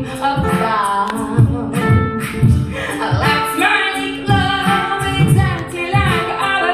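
A woman singing a comic song a cappella over a man's beatboxing, which keeps a steady beat of low thumps about twice a second.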